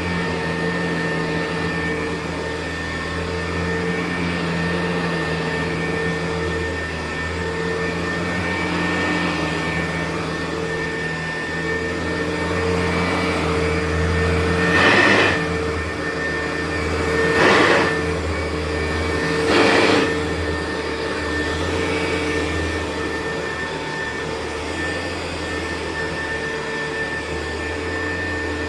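Hoover U4007 upright vacuum cleaner running steadily on carpet, with a constant whine. About halfway through it swells louder three times in quick succession, each for under a second.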